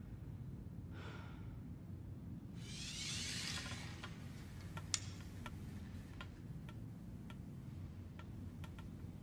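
Hushed film soundtrack: faint, sharp ticking clicks over a low steady hum, coming about two a second in the second half, with a soft swelling hiss about three seconds in.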